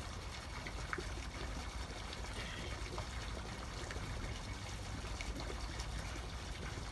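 Pond water sloshing and trickling as hands swish through it, with a few faint splashes.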